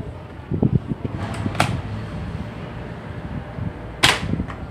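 M799 spring-powered airsoft rifle firing: a sharp snap about a second and a half in and a louder one about four seconds in, with fainter clicks around them, over a steady low rumble.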